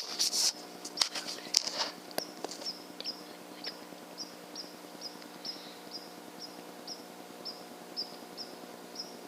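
A small bird's short high chirp, repeated about two to three times a second, over a steady low hum. Rustling and a few sharp clicks come in the first two seconds.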